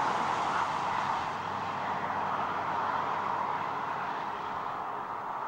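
Steady rain: an even rushing hiss that slowly fades.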